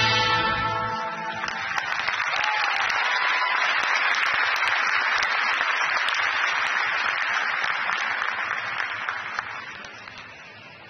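Skating program music ends on a held final chord, then the arena crowd applauds, the applause fading away near the end.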